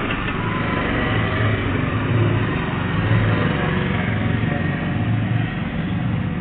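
Road traffic noise: a vehicle engine running with a steady low hum that swells and eases every second or so.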